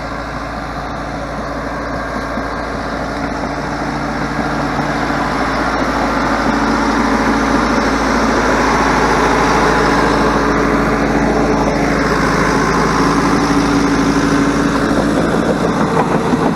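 Bulldozer's diesel engine running, growing louder over the first several seconds as the machine comes closer.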